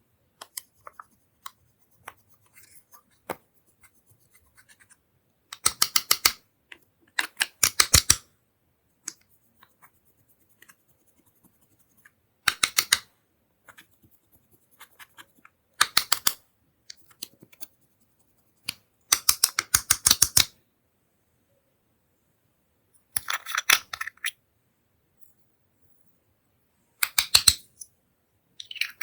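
Slime being squeezed and kneaded by hand, giving bursts of rapid sticky clicking and popping as trapped air breaks through. There are about seven bursts, each around a second long and several seconds apart, with faint small clicks in between.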